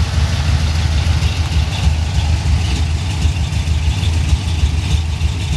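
Pontiac 455 V8 with 6X heads, swapped into a Chevrolet S10 pickup, idling with a deep, uneven exhaust beat.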